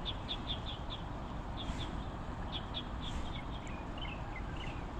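Small birds chirping in quick runs of short, high notes, over a steady low background noise.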